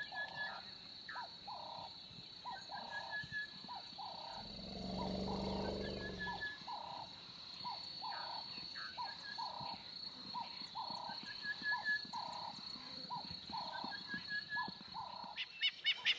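African bush soundscape: a steady high insect trill, an animal repeating short calls about twice a second, and a lion roaring once, low and drawn out, for about two seconds, starting about four seconds in.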